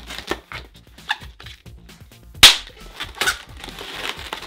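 Latex 160 twisting balloons being handled and wrapped: a few small sharp clicks, and one loud sharp snap about two and a half seconds in.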